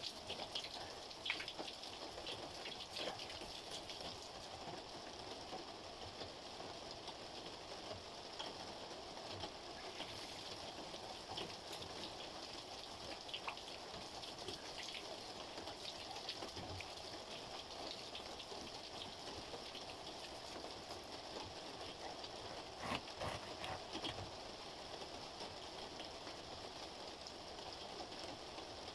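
Water running from a brass tap and splashing onto stone as arms and feet are washed under it: a steady run of water with many small splashes.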